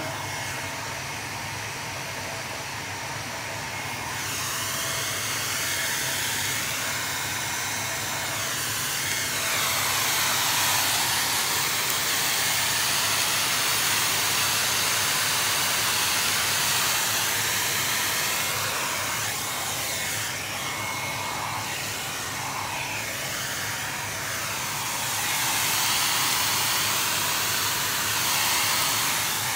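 Handheld hair dryer blowing hot air onto leather to dry a freshly sprayed coat of leather lacquer finish, a steady airy hiss with a motor hum beneath that swells and eases as it is moved over the seat.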